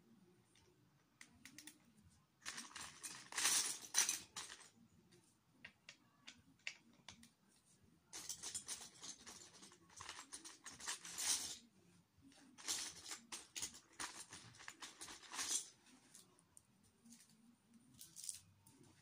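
Loose Lego bricks clattering as a hand rummages through a plastic tub of them, in three spells of a few seconds each, with single clicks of bricks being handled in between.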